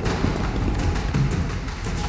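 Tense action film score with heavy low percussion thuds.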